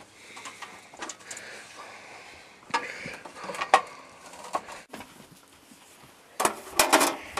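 Scattered clanks and knocks of metal parts being handled on a portable bandsaw mill with its engine not running, as a sheet-metal blade wheel cover is taken off; the loudest clatter comes near the end.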